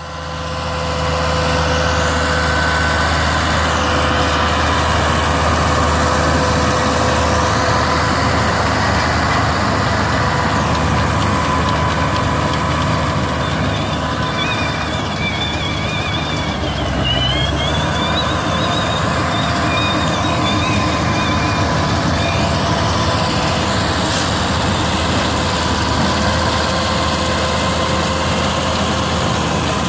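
Turbocharged SAME Tiger 100 tractor's five-cylinder diesel running steadily at working revs while driving a Feraboli Extreme 265 round baler baling straw. The baler's machinery adds a steady whine, and a thinner, wavering higher whine joins for several seconds in the middle.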